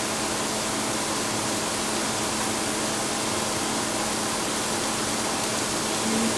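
Mushrooms and capsicum sizzling in a hot frying pan over a high flame: a steady, even hiss.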